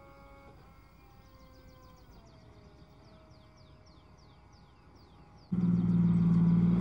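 Faint music of held tones and short falling chirps. About five and a half seconds in, the sound cuts in suddenly to the six-wheeled AMX-10RC armoured car driving, its diesel engine running loud and steady.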